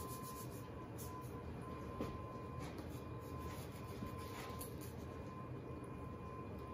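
Quiet room tone with a faint steady whine, and a few soft scrapes and light taps of a spatula being slid under soft scone dough on parchment paper, one small click about two seconds in.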